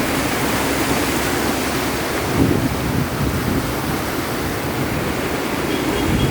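Steady rushing of floodwater mixed with wind buffeting the microphone.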